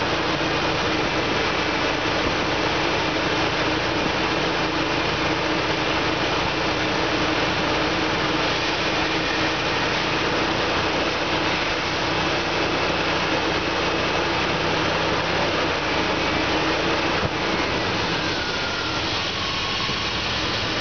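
Dodge Durango engine idling steadily during a used-engine running test, with an even, unchanging note.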